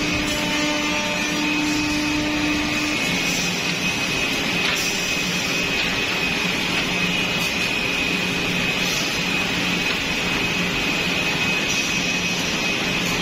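Woodmaster WM-5x2CNC ten-head CNC mortising machine running: a steady mechanical noise with a high whine. About three seconds in, a lower hum gives way to a deeper, pulsing drone.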